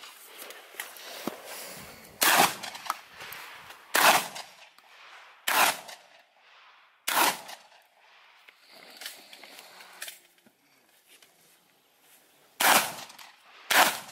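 Shotgun firing single shots: four shots about a second and a half apart, a pause of about five seconds, then two more shots about a second apart.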